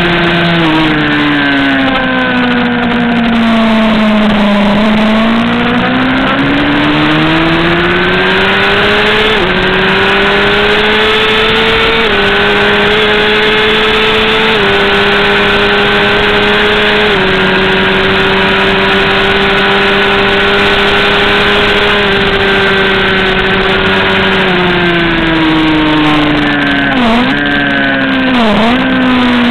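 Racing superbike engine at high revs, with wind rush over the onboard microphone. The revs dip, then climb through four quick upshifts and hold flat out on a straight. Near the end they fall under braking with a rapid run of downshifts, each marked by a short blip of the throttle.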